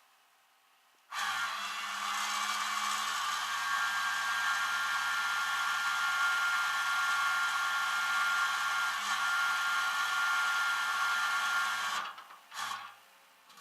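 A machine running steadily with a hissing whir over a low hum. It switches on suddenly about a second in and cuts off abruptly about eleven seconds later.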